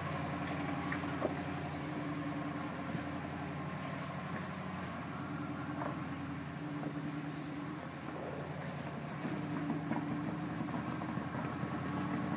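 Lifted Jeep's engine running at low revs while crawling over rocks, the note easing off for a couple of seconds in the middle and picking up again, with occasional faint clicks and knocks of tyres on stone.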